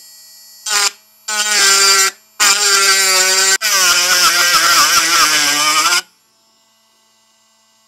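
Pen-style cordless rotary tool grinding off the bent-over axle-retaining posts on a die-cast toy car base, in several bursts. Its whine wavers and dips as the bit bites into the metal. It stops about six seconds in.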